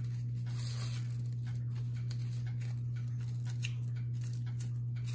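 Steady low hum, with faint rustles and light clicks of tissue-paper strips and tape being handled.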